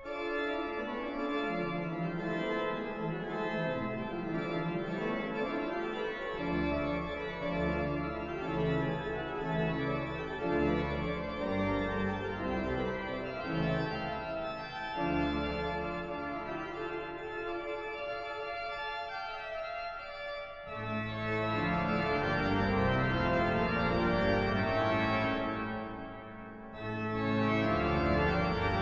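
Pipe organ playing a closing voluntary after the service: sustained, changing chords over deep pedal bass notes. It swells fuller and louder about two-thirds of the way through, dipping briefly near the end before coming back in.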